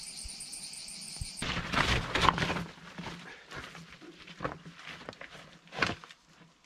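Mountain bike clambering over wet, slippery limestone rocks: irregular scraping and clattering of tyres and bike on the stones, with sharp knocks, loudest about two seconds in. A steady high whine in the first second and a half cuts off suddenly.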